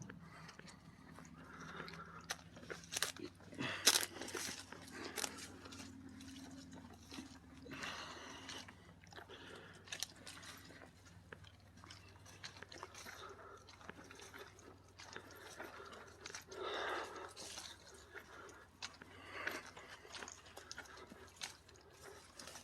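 Footsteps crunching along a woodland trail, an uneven run of crackly steps.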